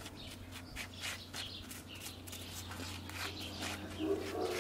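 Gloved hand scratching and rustling through dry pine needles and potting soil in a planter: a run of soft, irregular scrapes.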